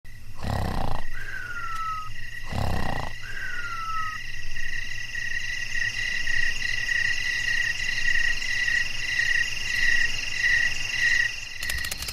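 A chorus of frogs, their high calls pulsing on without a break. It is broken by two short noisy swells and two brief falling whistles in the first few seconds, and a burst of rapid clicking near the end.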